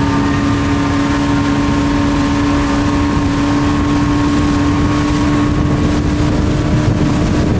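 Motorboat engine running steadily at high throttle, a constant drone over a steady rushing noise of water and air.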